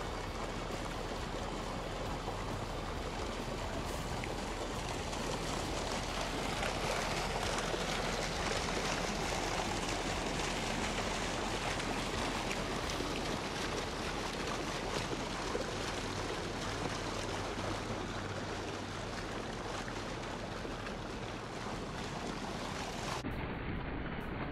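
Water from a large fill hose gushing into a swimming pool, a steady splashing rush on the pool's surface.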